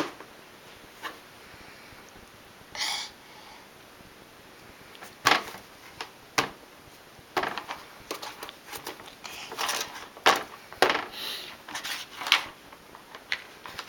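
Scattered clicks, knocks and brief rustles of plastic Play-Doh tools being handled on a table, sparse at first and busier in the second half.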